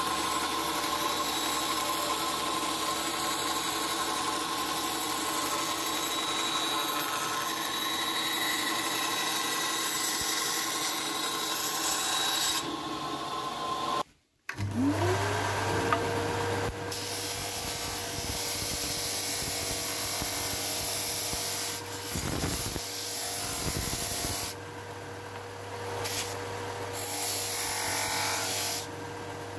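A bench band saw runs and cuts through a board for about the first 13 seconds. After a short silence, a combination belt-and-disc sander starts with a rising whine that settles to a steady hum, and wood is later pressed against the sanding disc, the sound shifting in level as it bites.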